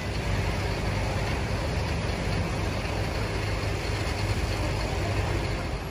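Steady low rumble of motor vehicle engines on a flooded road, with an even hiss over it and no distinct events.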